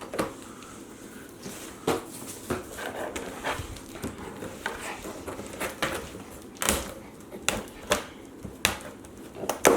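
Irregular knocks and scrapes as a large cardboard box is handled and unpacked, with a dog panting and whimpering.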